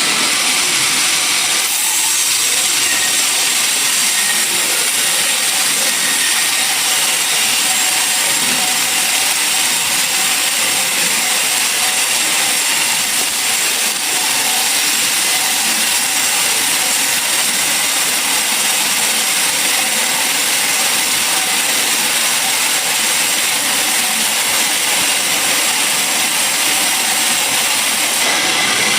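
Sawmill saw cutting through a log, a loud, steady, hissing machine noise with a faint high whine; the sound shifts slightly near the start and again near the end.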